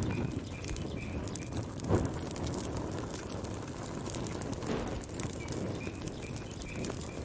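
Wood fire burning, a low rush with steady crackling and one louder pop about two seconds in.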